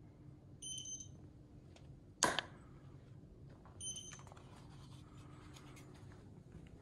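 Elinchrom Pro HD studio flash heads cycling. A short ready beep comes near the start, then a flash fires with a sharp pop, and a second beep follows about one and a half seconds later as the head recharges and signals ready. A low steady hum runs underneath.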